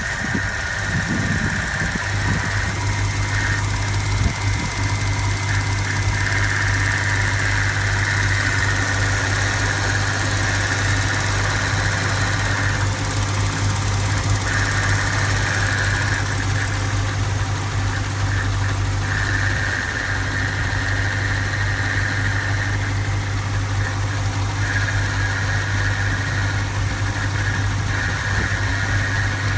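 BMW N62 4.4-litre V8 idling steadily, with a higher-pitched noise that cuts in and out every few seconds over the engine's steady hum: the weird noise the owner is asking about.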